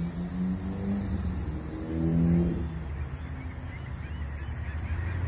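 Receding EXO commuter train with an F59PHI diesel locomotive: a low rumble with a wavering pitched drone from the train that fades away about three seconds in.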